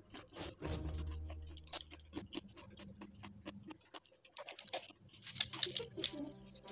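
Crisp peyek teri (fried rice-flour anchovy crackers) crunching and snapping in a rapid, irregular run of sharp crackles, as the brittle crackers are handled and broken apart by hand. The loudest cluster of snaps comes near the end.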